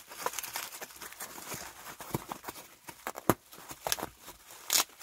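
Bubble wrap and plastic packaging being pulled apart by hand, crinkling and crackling irregularly, with a sharper snap about three seconds in and a louder rustle near the end.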